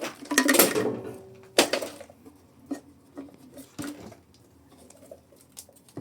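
Hands working with small tools and a fuel hose: a scraping rustle at the start, a sharp click about one and a half seconds in, then a few faint clicks and taps.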